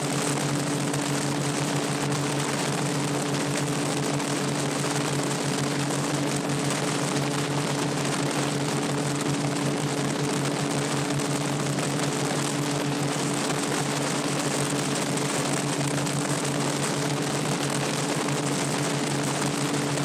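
Gyroplane's engine and propeller running steadily in cruise flight, a constant droning hum under strong wind rush in the open cockpit.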